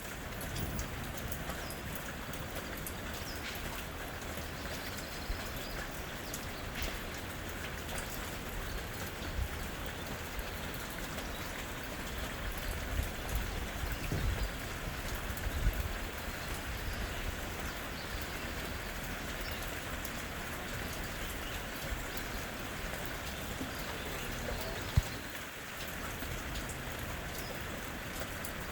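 Steady soft rain pattering on forest leaves, with a little low rumbling about halfway through and one sharp tap near the end.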